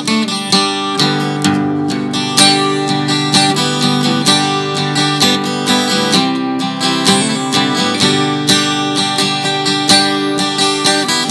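Acoustic guitar music, strummed and picked in a steady rhythm.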